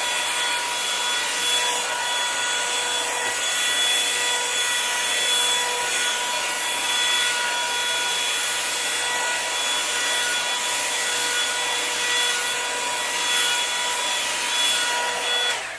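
Revlon One-Step paddle hair dryer running on its high setting: a steady rush of blown air with a high motor whine, which cuts off suddenly near the end.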